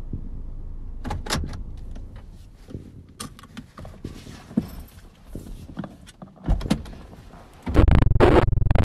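Clicks, knocks and rustling from someone moving about in a parked car's driver's seat, then a loud, harsh noise lasting about a second near the end.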